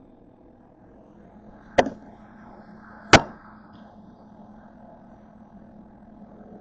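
Two sharp knocks of something set or struck down on a kitchen countertop, about a second and a half apart, the second louder. Both sit over a steady low hum.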